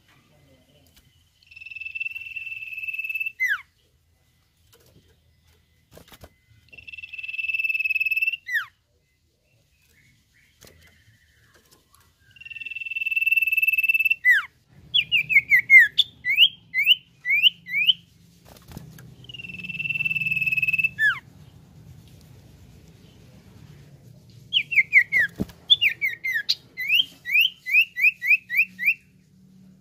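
Common iora (cipoh) singing. It gives four long, steady whistles, each about two seconds long and ending in a quick downward slur. Twice, in the second half, it breaks into fast runs of short falling notes, about five a second.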